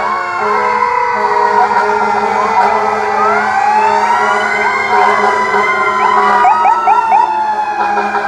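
Several fire engine sirens wailing at once, their pitches slowly rising and falling and overlapping, with a few quick short chirps about two-thirds of the way through.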